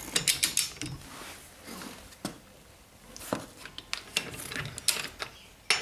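Scattered metallic clicks and knocks of a 17 mm wrench being fitted onto and worked on the car's wheel bolts to loosen them.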